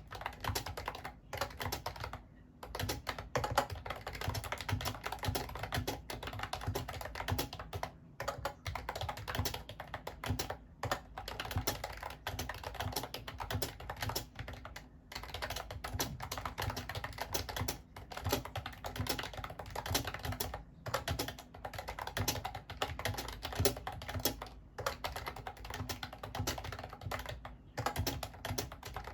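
Fast, continuous typing on a Mofii Candy wireless keyboard: a dense run of key clicks, broken by a few short pauses.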